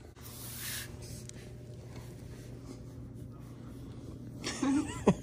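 Domestic cat purring, a steady low rumble, with fur rubbing and brushing against the microphone, loudest just after the start. A short voice-like sound with bending pitch near the end.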